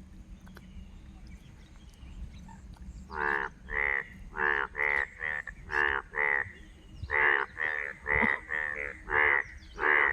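Frogs croaking after rain. After about three seconds of near quiet, short rasping croaks start and repeat about twice a second, often in pairs.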